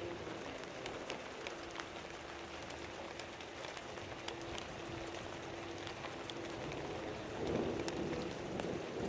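Heavy rain falling steadily, with many sharp drip ticks scattered through it. Near the end a deeper, louder surge of sound builds up under the rain.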